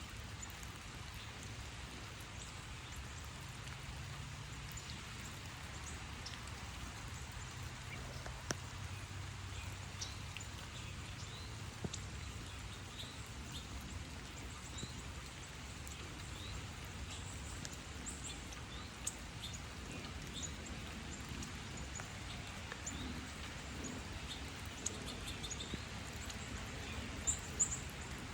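Chickens foraging, with scattered sharp pecking clicks and brief high chirps and peeps over a low, steady hum. The chirps grow more frequent near the end.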